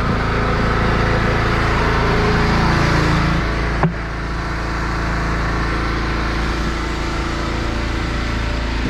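Pressure washer's engine running steadily, with a sharp click just under four seconds in.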